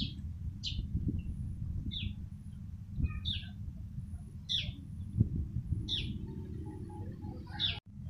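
Eurasian tree sparrows chirping: short single chirps about once a second over a steady low background rumble.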